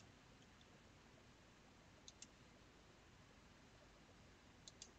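Computer mouse button clicking in near silence: two pairs of quick clicks, one about two seconds in and one near the end, as the catalogue pages are turned.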